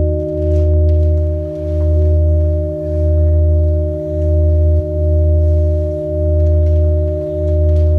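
Sine wave oscillators sounding a sustained electronic drone of several steady pure tones, the loudest a deep bass tone that swells and dips evenly about once every second and a quarter.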